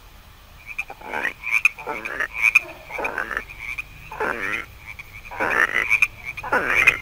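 A frog croaking repeatedly, about one croak a second, with a thin steady high-pitched tone behind the croaks.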